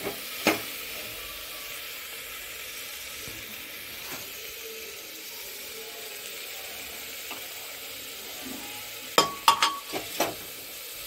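Chana and peas roasting in tomato-spice masala in an open pressure cooker, a steady sizzle, while a steel ladle stirs. The ladle knocks against the cooker about half a second in and several times in quick succession near the end.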